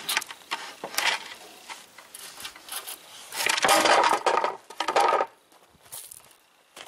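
Plywood pieces being handled: a few sharp wooden knocks, then a louder clatter and rustle about three seconds in that lasts nearly two seconds.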